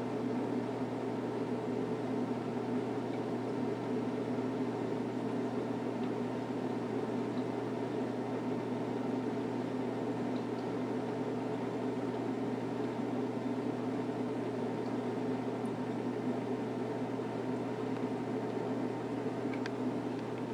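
Steady hum and whir of running saltwater aquarium equipment, such as circulation pumps, with an even low drone.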